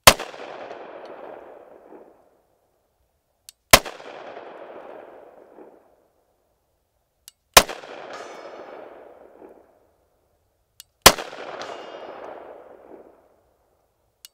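Four 9mm pistol shots firing 115-grain FMJ ball, spaced about three and a half seconds apart, each with an echo that dies away over a couple of seconds. Half a second or so after the third and fourth shots there is a thin metallic ring, a steel target being struck.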